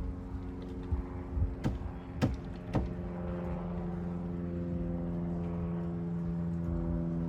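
A motor running steadily with an even hum, and a handful of sharp knocks between about one and three seconds in.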